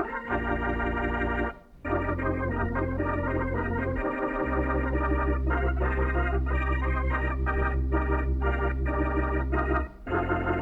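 Organ playing sustained chords over a steady bass line, with short breaks about two seconds in, around four seconds and near the end.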